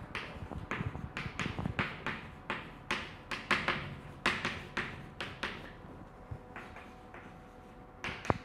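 Chalk writing on a blackboard: an irregular run of short taps and scratches as each letter is written, with one sharper click just before the end.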